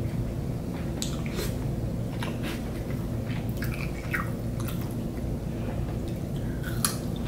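A person chewing a mouthful of soup dumpling close to the microphone: scattered soft wet clicks and smacks over a steady low background hum.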